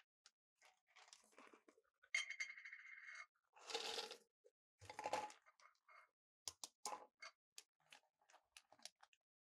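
Small parts being handled during keyboard assembly: scattered light clicks and taps, a brief buzzing whir about two seconds in, and two short scraping rustles around four and five seconds in.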